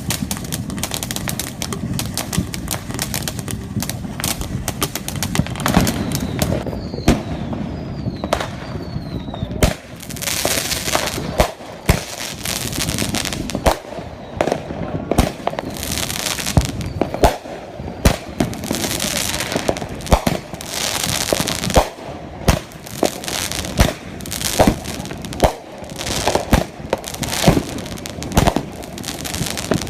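Firecrackers and fireworks going off in irregular strings of sharp pops and cracks. A few short falling whistles come about a quarter of the way in.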